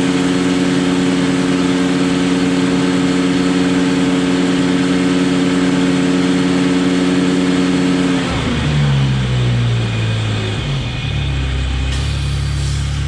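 Ventrac compact tractor's engine running steadily at about 3,200 rpm, driving the KC220 stump grinder's cutting disc at about 1,300 rpm with no load. A little after eight seconds the engine winds down and settles into a lower, steady idle.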